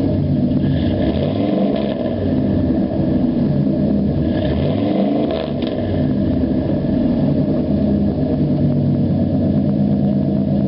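Vehicle engine running just after being started, steady with its pitch rising and falling briefly a couple of times as it is revved.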